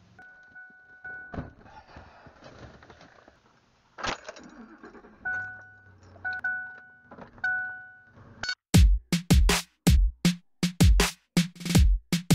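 A car's warning chime dinging in short runs, with keys rattling and a sharp thud about four seconds in. About eight and a half seconds in, loud music with a heavy electronic drum beat starts.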